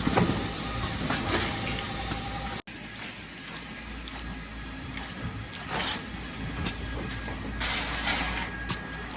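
Servo-driven sachet counting machine on an automatic pouch packaging line, running with a steady mechanical din and a low hum, with short bursts of hiss twice near the end. The sound cuts out for an instant about a third of the way in.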